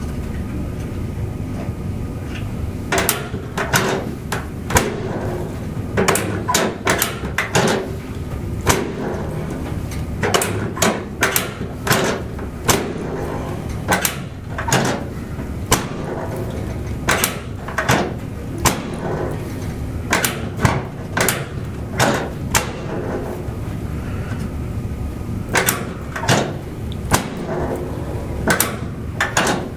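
An irregular run of sharp knocks and clacks from chiropractic adjusting on a treatment table, often in quick pairs or clusters, starting about three seconds in, over a steady low rumble.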